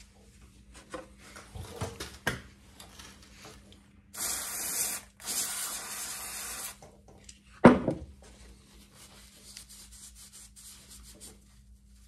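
Aerosol cleaner spray hissing onto a motorcycle's rear brake caliper in two bursts, about a second and then a second and a half long, to clean off brake fluid that overflowed when the pistons were pushed in. Light clicks and rubbing come before the spraying, and a single sharp knock, the loudest sound, follows soon after it.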